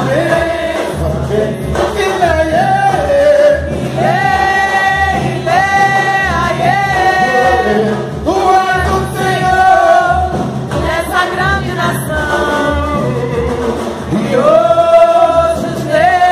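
A chorus of voices singing together in long held notes, over a steady beat from large drums.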